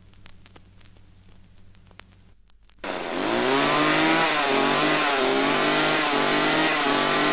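Faint hum with a few crackling clicks, then a two-stroke chainsaw cuts in suddenly and loudly about three seconds in, its pitch rising and then wavering as it is revved.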